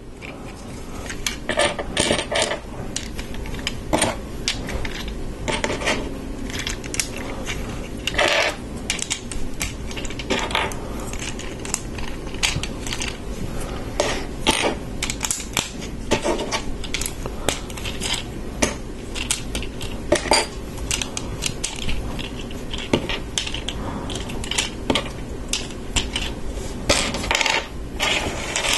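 Plastic LEGO bricks, plates and tiles clicking and clattering as they are picked up and pressed together, a run of many short, irregular sharp clicks.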